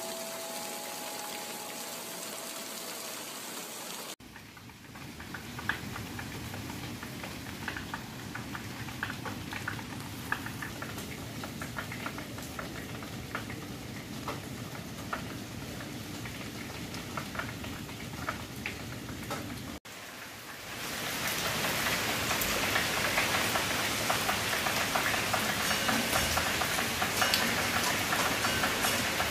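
Heavy rain falling on garden foliage, a steady hiss with many individual drips ticking on the leaves. About 20 seconds in, after a cut, the rain turns louder and denser.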